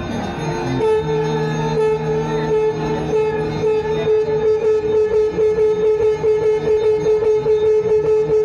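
Conch shells (shankh) blown in long, steady held notes at the start of the Ganga aarti. About three seconds in, a quick metallic beat of about three strokes a second joins them.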